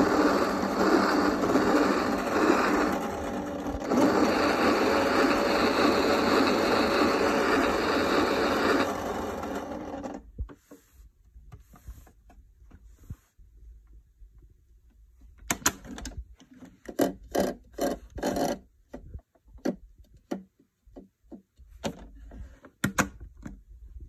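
Keenway My Home toy washing machine playing its electronic wash-cycle sound effect through its built-in speaker, loud and steady with a short dip near three seconds, stopping about ten seconds in. After that, intermittent plastic rubbing and light knocks as the toy is handled and turned round.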